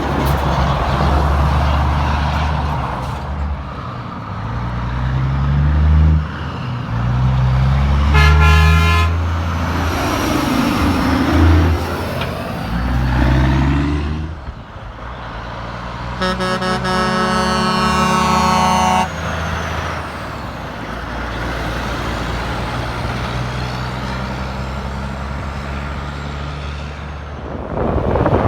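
Heavy truck engines running and pulling past, their pitch stepping up and down. A short air-horn blast comes about a third of the way in, and a longer horn blast lasting about three seconds follows past the middle.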